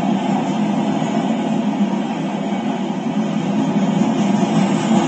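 Freight train of covered hopper cars rolling past close by: a steady rumble of steel wheels on the rails.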